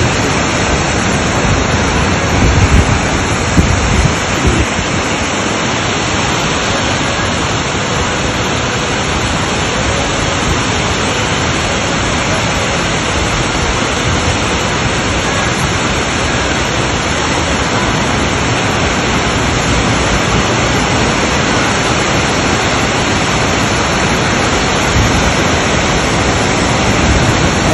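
Waterfall cascading down a rocky gorge: a loud, steady rush of falling water. A few low bumps on the microphone come about three to four seconds in.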